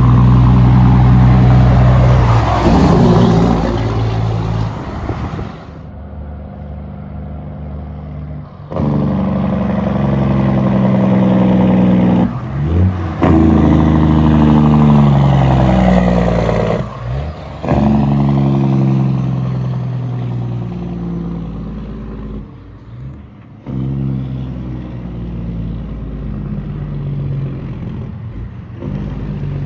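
Diesel semi-truck engine brakes (Jake brakes) firing as the trucks slow, a loud, rapid barking engine note. It comes in a string of short clips that cut abruptly from one truck to the next.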